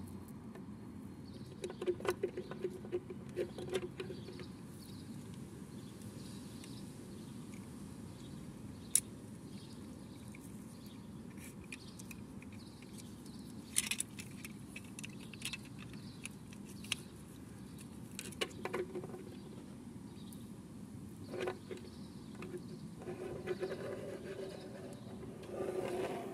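Small plastic toy tricycle parts and a doll being handled on a wooden tabletop: scattered light clicks and taps, in short clusters, over a steady low hiss.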